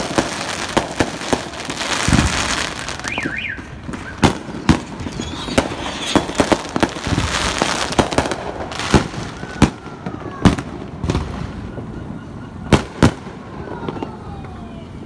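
Consumer fireworks going off: many sharp bangs in irregular succession, with stretches of crackling hiss between them.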